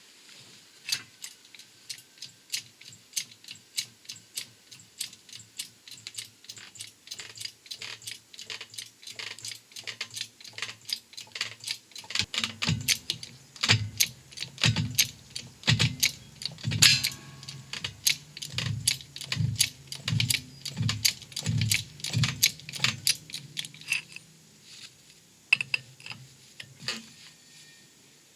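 Cheap 6-ton hydraulic shop press being pumped by its hand lever, clicking with each stroke as it presses a wheel bearing out of a hub carrier. About halfway through, a low tone pulses in time with the strokes as the press comes under load, with one louder crack a little past the middle.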